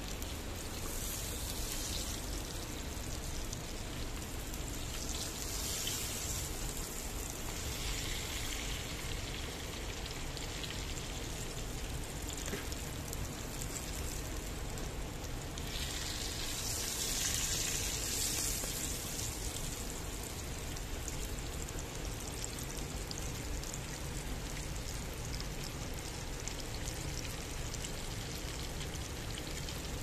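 Hot oil sizzling steadily as dough piroshki deep-fry, swelling to a louder, brighter crackle a few times.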